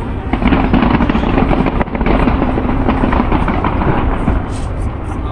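Fireworks going off in a dense barrage: a rapid, continuous crackle of bangs over a low rumble.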